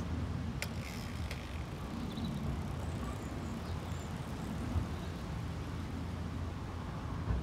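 Steady low outdoor rumble of street ambience, with two light clicks in the first second and a half.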